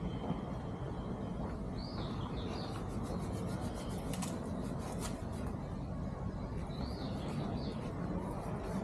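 Outdoor ambience with a steady low rumble, and a bird calling twice, about two seconds in and again about seven seconds in, each call a quick pair of rising-and-falling notes.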